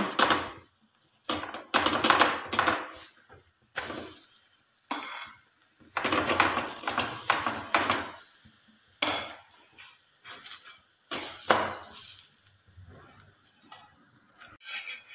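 Ghee sizzling on a hot tawa under a makki (corn-flour) roti as it is spread on with a spoon. The spoon scrapes and clinks against the roti and pan in repeated strokes, with a steady high sizzle between them.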